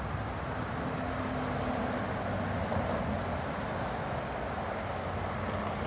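Steady road traffic: cars passing on a nearby street, a continuous wash of tyre noise with low engine hum that swells and fades slightly.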